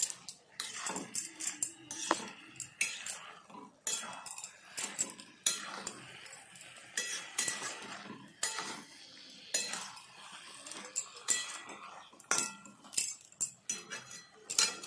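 A spatula scraping and clinking against a metal frying pan as chopped greens and potato are stirred, in quick, irregular strokes.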